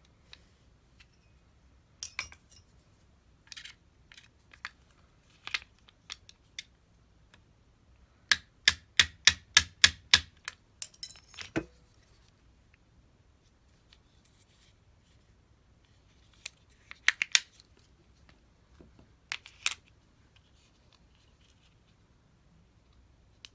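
Sharp clicks and light taps of small hard parts and tools being handled during bench work, with a quick run of about nine even clicks near the middle, about four a second.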